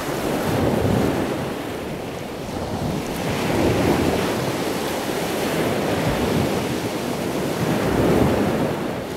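Heavy ocean surf breaking and washing over a rocky shoreline, rising in loudness with each wave about a second, four seconds and eight seconds in. Wind rushes across the microphone.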